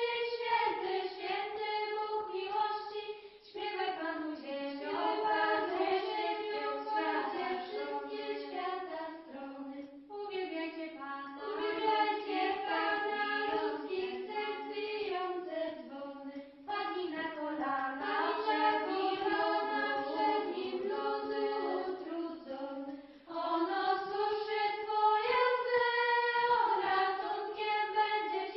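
A choir of high voices singing in phrases of about six seconds each, with short breaks between them.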